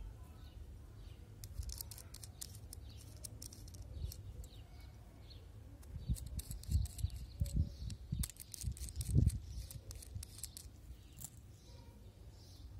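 Small metallic clicks and scrapes as threaded F-connectors are unscrewed from a die-cast two-way coax splitter, in two bursts, with low bumps from the hands on the microphone. Faint bird chirps sound in the background.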